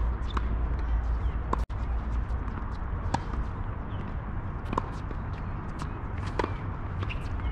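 Tennis rally: sharp racquet strikes and ball bounces, the strongest about every second and a half, with scuffing footsteps, over a steady low rumble. The sound drops out briefly about two seconds in.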